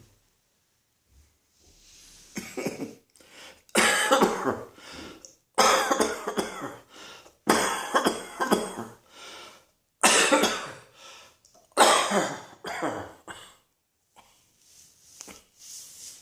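A person coughing in repeated fits: about six hard bouts a second or two apart, each a loud cough trailing off into smaller ones, then a few quieter coughs near the end.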